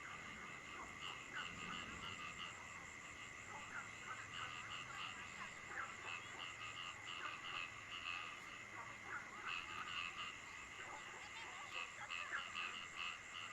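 Frogs calling at night, several at once, in rapid runs of short notes that come and go. Beneath them is a steady high-pitched drone and faint falling rain.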